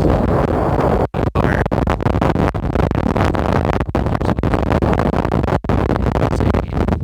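Strong wind buffeting a RØDE VideoMic Me phone microphone with its windshield off: a loud, heavy rumble of wind noise, cutting out for an instant a few times.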